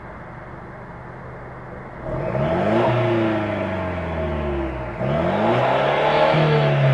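Mercedes-Benz C200 (W205) engine through its stock exhaust, idling steadily, then revved twice: about two seconds in and again near five seconds. Each time the pitch climbs quickly and sinks back.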